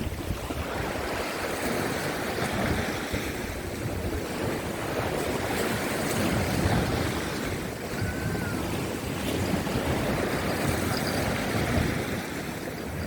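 Rough sea surf washing against the coastal rocks, a steady rush that swells and eases, with strong wind buffeting the microphone. A faint short high note sounds briefly about eight seconds in.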